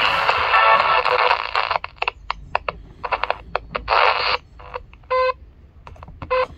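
Mikki 2 pocket transistor radio tuned across the medium wave (AM) band, heard through its tiny speaker. A station plays for about the first two seconds, then short snatches of stations and static cut in and out as the tuning wheel turns, with a brief tone about five seconds in.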